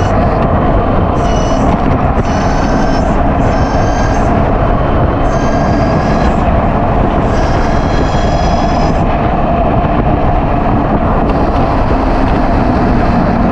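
High-pitched whine of a 72 V 5000 W QS hub-motor electric motorcycle, coming and going in short spells and rising a little in pitch each time, over loud, steady wind and road noise on the microphone while riding.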